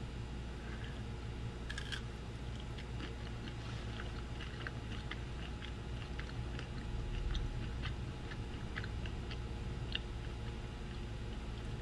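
Person chewing a mouthful of pizza close to the microphone: a sharp crunch about two seconds in, then a steady run of small clicks as the bite is chewed.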